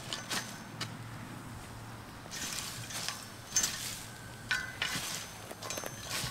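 Garden rake dragged through dry wood-chip mulch, its tines scraping and rustling through the chips in a series of uneven strokes.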